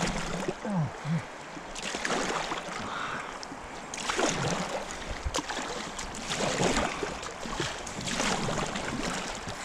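Fast river current splashing and rushing around inflatable kayaks, with irregular surges of splashing every second or two.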